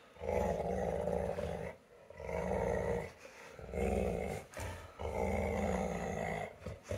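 Pit bulls growling nose to nose while contesting a small ball held between their mouths, in four long bouts with short breaks between them.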